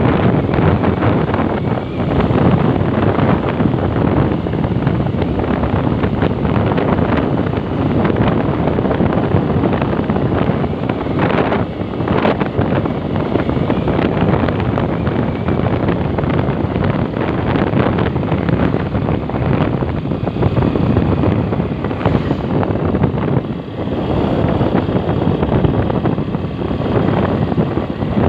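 Steady rush of wind buffeting the microphone on a moving motorcycle, with road and engine noise from the ride underneath.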